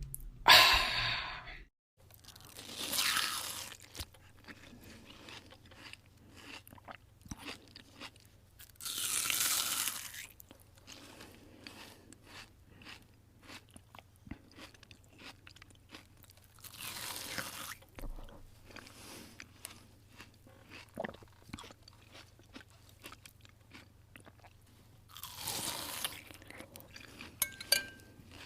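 Crunchy slime being squeezed and poked, crackling in a steady run of small clicks, with louder crunching squishes every few seconds.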